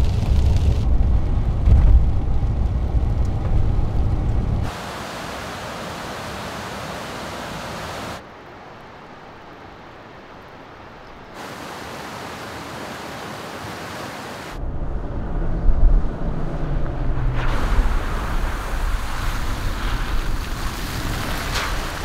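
Abruptly cutting ambient recordings. First a steady low road rumble inside a first-generation Toyota Tundra's cab as it drives in the rain. Then several quieter stretches of rushing river water, and from about two-thirds of the way in the louder rumble of the truck and camper driving by, with wind on the microphone.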